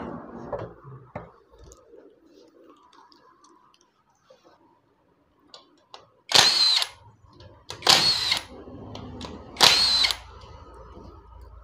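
Cordless power driver run in three short bursts, with a steady high whine, undoing the tappet cover bolts on a Honda Hornet's air-cooled single-cylinder engine ahead of a valve clearance adjustment.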